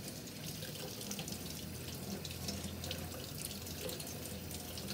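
Kitchen faucet running steadily into a stainless steel sink, the stream splashing over grape tomatoes being rinsed in cupped hands.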